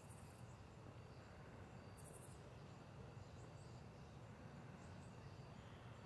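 Near silence: faint outdoor night ambience with a low steady hum and two brief high-pitched chirping trills, about two seconds apart.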